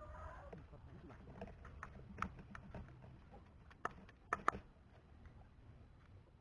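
Irregular sharp clicks and taps, the loudest three coming close together about four seconds in, after a short gliding pitched sound at the very start.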